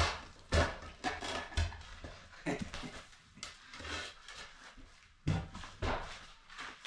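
A shovel scraping and knocking against a floor while prying up glued-down flooring: irregular knocks and scrapes with short pauses between them.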